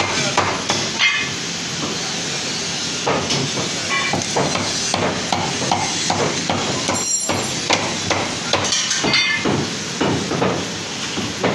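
Butcher's meat cleaver chopping mutton leg on a wooden log chopping block: repeated, irregular chops, some with a brief metallic ring.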